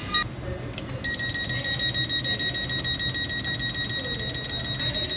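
A high-pitched electronic beeper sounding in rapid, even pulses, starting about a second in, over a low steady hum.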